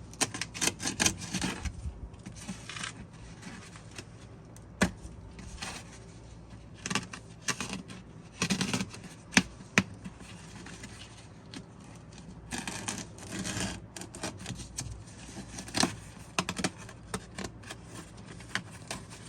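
Plastic moisture-barrier sheet on a Fiat 500's inner door being cut and pulled back by hand: irregular crinkling and scraping with scattered sharp clicks, the loudest a pair of knocks about nine to ten seconds in.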